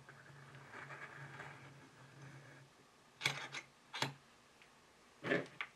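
Handling noise as a microphone capsule is clamped in a small bench vise: a soft scraping, then a few sharp clicks and knocks, three of them loud, as the capsule and vise are handled.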